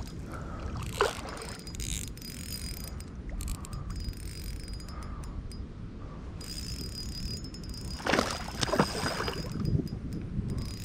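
Spinning reel, a Daiwa Finesse LT 2000, being cranked to retrieve a lure, giving a light mechanical whir. Steady wind rumble runs on the microphone, with a couple of brief swishes about a second in and around eight seconds.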